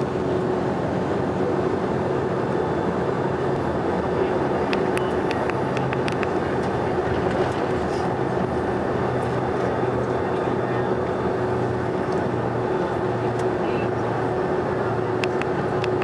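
Cabin noise inside a Boeing 767-400ER taxiing: a steady engine and air-conditioning drone with a constant hum, and a few faint ticks and rattles.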